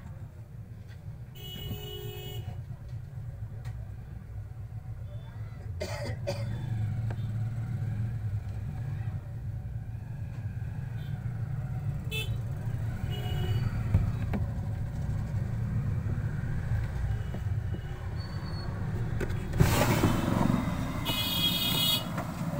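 Steady low background rumble that grows louder, with short high-pitched toots about two seconds in, near the middle and near the end.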